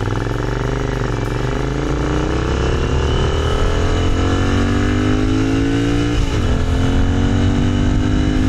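Royal Enfield motorcycle engine accelerating, its pitch climbing steadily. About six seconds in the pitch drops sharply, as on an upshift, then climbs again.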